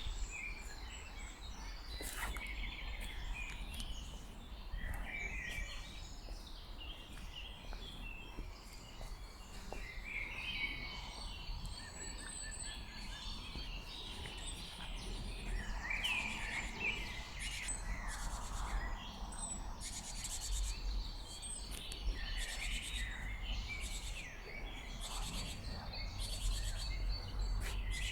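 Several songbirds singing and chirping, with many short overlapping calls and trills, over a steady low rumble of background noise.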